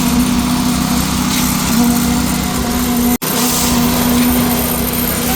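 Diesel engine of a concrete truck running steadily at constant speed, a loud even drone. The sound drops out for an instant about three seconds in.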